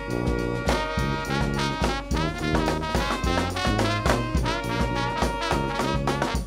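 New Orleans brass band playing: trumpet and trombone lead with saxophones over a sousaphone bass line and a steady bass-drum and snare beat.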